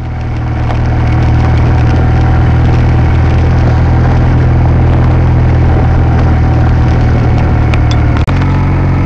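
Motorcycle engine running at a steady, even note while riding, with rushing wind noise over it. There is a momentary dropout near the end, after which the engine note changes slightly.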